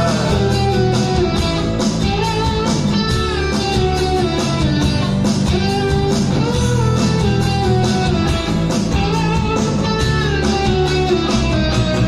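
Live band playing an instrumental break between sung verses: a melodic lead line over steady bass and drums.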